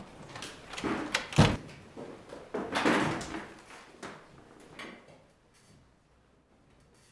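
Classroom door opened and swung shut, with a heavy thud about a second and a half in. A few more knocks and a longer stretch of noise around three seconds follow, fading out by about five seconds in.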